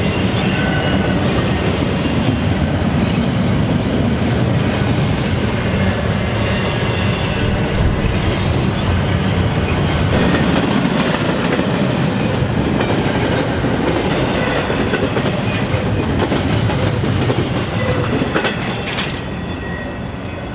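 Freight train cars rolling past at close range: a steady rumble of steel wheels on rail with clicking over the joints. It eases off a little near the end.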